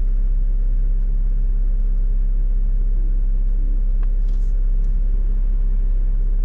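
Jeep engine idling with the vehicle standing still: a steady low rumble with a constant hum. There is a faint click about four seconds in.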